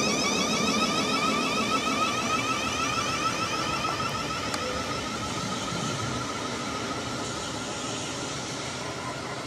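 Electric multiple unit's traction motors whining, several tones together falling slowly in pitch and fading.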